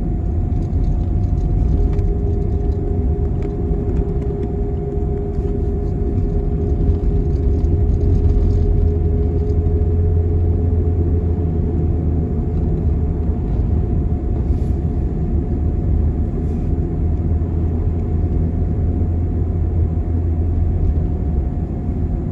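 Road and engine noise inside a moving vehicle's cabin: a steady low rumble with a faint, steady whine above it.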